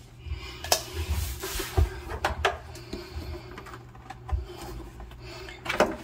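Scattered light knocks, clicks and rubbing of plastic parts being handled, as the drain tubes are pulled off the back of a refrigerator, over a low steady hum.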